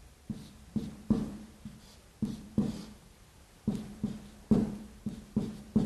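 Background music of a low-pitched hand drum, struck about a dozen times in an uneven rhythm, each hit dying away quickly.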